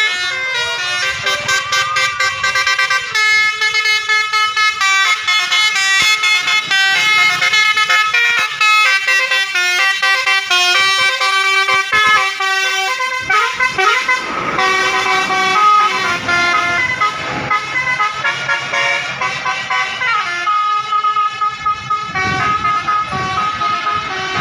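Basuri telolet multi-tone bus air horn playing a quick melody of changing notes that keeps going. A rushing noise swells under the horn about halfway through.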